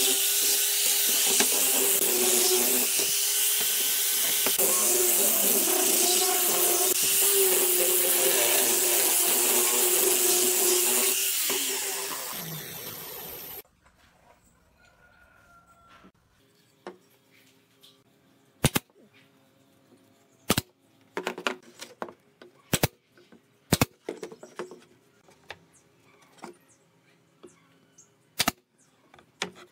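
A power sander with a round sanding pad runs steadily against a pine board, then cuts off abruptly about thirteen seconds in. After that, a few widely spaced sharp clacks, the last of them a pneumatic brad nailer firing into the wooden box.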